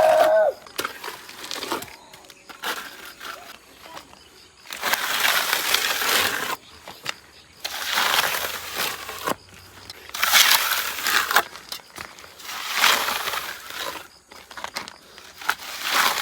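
Plastering trowel scraping sand-cement mortar across a brick wall, spreading and smoothing a base coat in about five strokes, each a second or two long.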